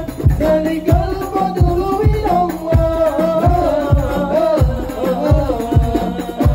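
A male voice sings an Arabic devotional syair in long, wavering held notes. Hand drums (rebana frame drums) keep a steady beat of low strokes, about three a second.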